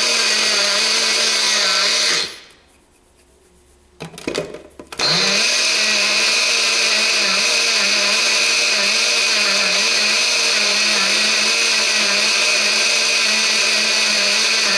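Single-serve personal blender motor running with a cup of white powder. It stops about two seconds in, there is a short clatter as the cup is seated back on the base, and the motor starts again about five seconds in and keeps running.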